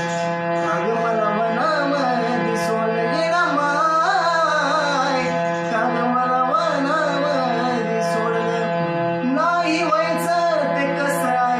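Marathi devotional song performance: a bending, ornamented melody line over a steady held drone of many sustained tones.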